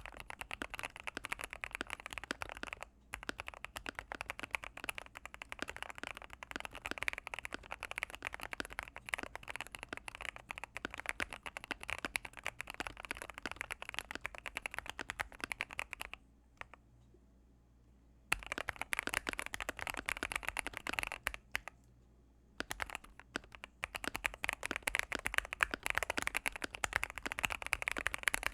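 Fast typing on a gasket-mounted mechanical keyboard with Gateron Pro Yellow linear switches in an Akko MOD005 case with EVA gaskets and Akko ASA-profile keycaps: a dense run of keystroke clacks, stopping for two short pauses in the second half.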